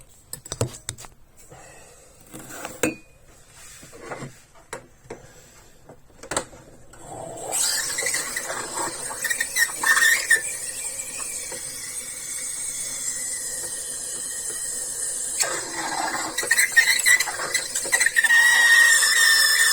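A few clicks and knocks, then from about seven seconds in the Klarstein Espressionata Gusto's steam wand hissing and squealing as it steams water in a cup, getting louder near the end. This is the rinse that flushes milk out of the frother so it does not clog.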